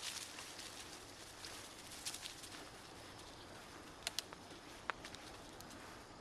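Bicycle rolling over a bumpy gravel canal towpath: a steady hiss of tyre and air noise, with sharp clicks of the bike rattling over bumps, two close together about four seconds in and one more just before five seconds.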